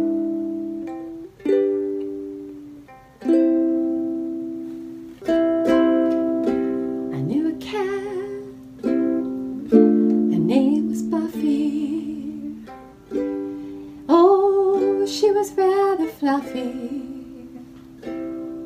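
Ukulele played in slow strummed chords, one about every one to two seconds, each left to ring out. Over several of the chords a wavering, gliding voice rises and falls.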